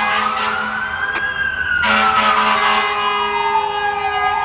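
Fire apparatus siren wailing, rising slowly in pitch, falling for a longer stretch, then starting to rise again near the end, with a short air horn blast about two seconds in.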